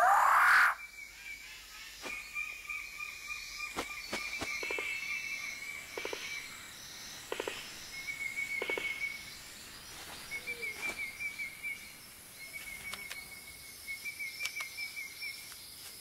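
Male birds-of-paradise displaying in rainforest. It opens with one loud rising call, followed by sharp clicks and snaps every second or two over a steady high trill of forest insects.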